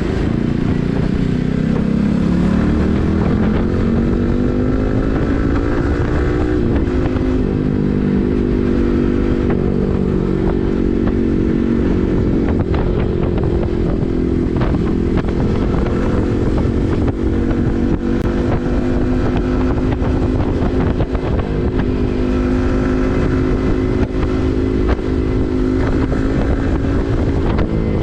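Yamaha MT15's single-cylinder engine running through an SC Project full-system aftermarket exhaust while riding. The engine pitch dips just after the start, climbs over the next few seconds, drops around a gear change, then holds steady at cruising speed.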